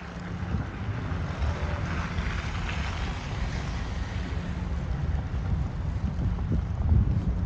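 Blizzard wind buffeting the microphone: a steady, gusty low rumble, with a hiss swelling for a second or two in the middle.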